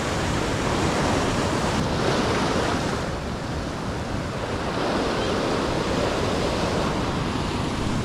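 Ocean surf breaking and foaming against shore rocks: a steady rushing wash of water.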